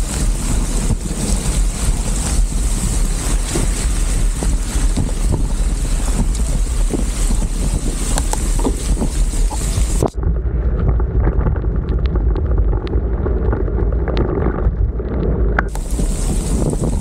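Wind buffeting the microphone of a bicycle ride through heavy rain, with a steady hiss of rain and tyre spray on the wet road. A little past the middle the high hiss cuts out suddenly for about five seconds, leaving a muffled rumble, then returns.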